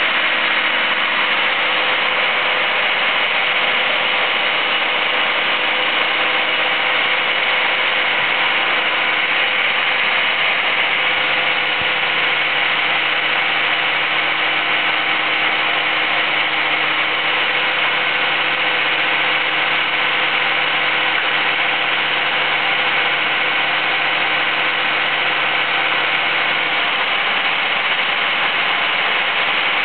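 An engine running steadily at an even pitch, with a faint higher whine that comes in about a third of the way through and drops out near the end.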